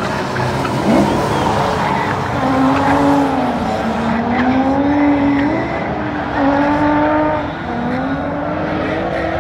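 Drift car engine revving hard, its pitch swinging up and down as the throttle is worked, with tires squealing as it slides.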